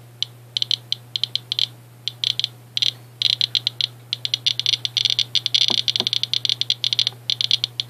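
S.E. International Inspector USB Geiger counter (pancake Geiger-Müller tube) clicking at random, one short high click per detected count. The clicks come much faster from about three seconds in as the count rate climbs: it is picking up radiation from uranium-doped Vaseline glass.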